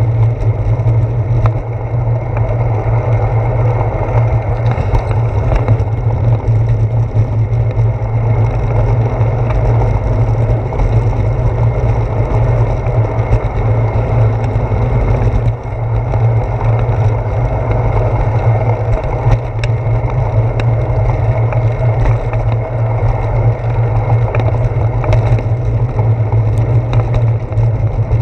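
Steady low rumble of wind and road vibration picked up by a handlebar-mounted GoPro Hero 4 on a moving bicycle, with a few faint clicks scattered through it.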